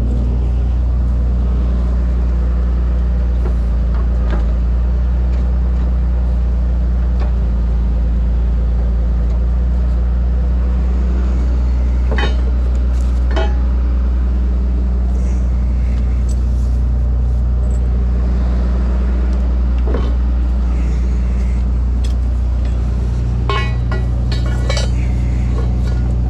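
Tow truck engine idling steadily, with scattered sharp metal clinks of chains and hooks being handled, a cluster of them near the end.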